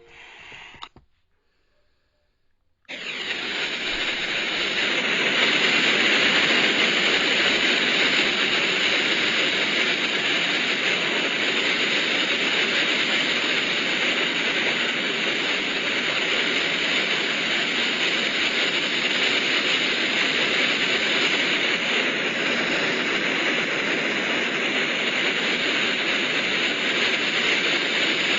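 A steady, even hiss of noise that starts suddenly about three seconds in, after a moment of near silence, and holds unchanged.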